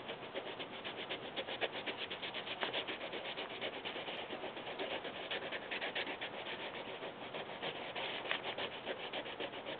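Wax crayon scribbling back and forth on a coloring-book page, a rubbing sound in quick, even strokes.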